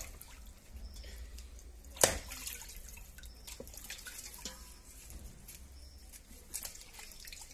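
A cleaver chopping duck meat on a wooden log chopping block: one hard chop about two seconds in, followed by a few lighter knocks. Water drips in the background.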